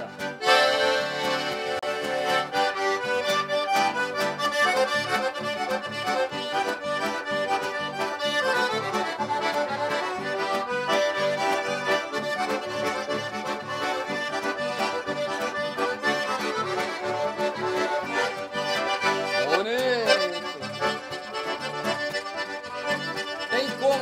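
Button accordion playing a lively instrumental tune, held upside down on the player's head, with other accordions keeping a steady bass-and-chord rhythm.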